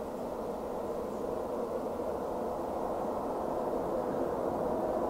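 Boeing 787-9's twin turbofan engines on final approach: a steady jet rumble that grows slowly louder as the airliner nears.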